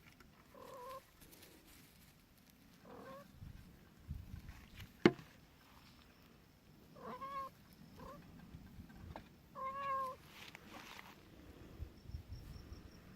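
A young kitten mewing five times in short, pitched calls. There is a single sharp click about five seconds in.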